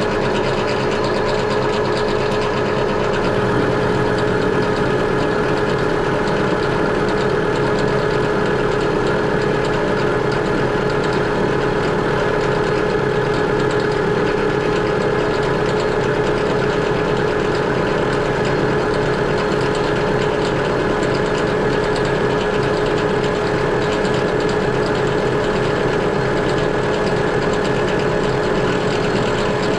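Metal lathe running with a carbide-tipped tool taking a turning pass along a bar, a steady machine hum and whine; a deeper hum joins about three seconds in. The cut has not yet cleaned up the whole circumference of the bar.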